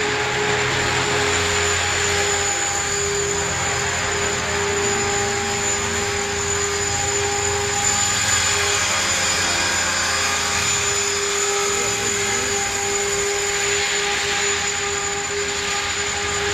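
Align T-Rex 500 electric RC helicopter in flight: a steady high whine from its motor and gears over the whoosh of the rotor blades, swelling slightly near the end.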